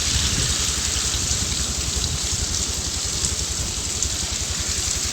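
Steady wind rumble buffeting the microphone over an even hiss of falling wet snow, with faint light ticks of flakes landing.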